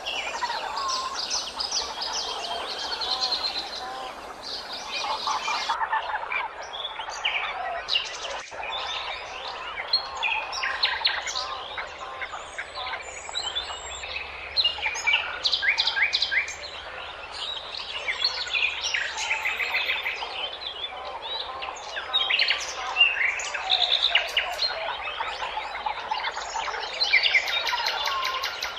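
Songbirds chirping and singing over one another, a busy chorus of short calls and rapid trills.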